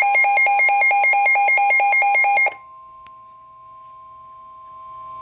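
Weather alert radio alarm beeping rapidly, about seven beeps a second, over the steady NOAA Weather Radio warning alarm tone that signals an incoming warning. The beeping cuts off about two and a half seconds in, a single click follows, and the steady tone carries on more quietly.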